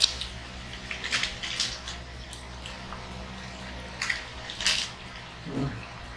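Wet chewing and lip-smacking of people eating burgers close to the microphone: a handful of short, moist smacks at irregular intervals.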